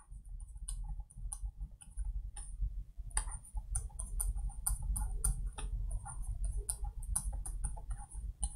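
Pen stylus tapping and scratching on a tablet screen during handwriting: a rapid, irregular run of small clicks over a low rumble.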